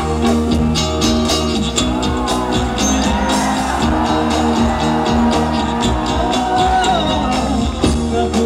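Live band music with drums, keyboards and guitars, and a male singer's voice holding long notes that glide up and down over it.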